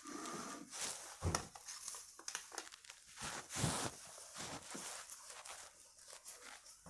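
Quiet rustling and scuffing with a few light thumps, one about a second in and one about halfway, from a person walking through small rooms and handling the phone.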